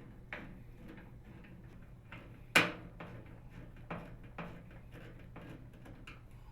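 Scattered small clicks and ticks of a Phillips screwdriver driving the two mounting screws into a microwave oven's door latch bracket and metal frame, with one sharper click about two and a half seconds in.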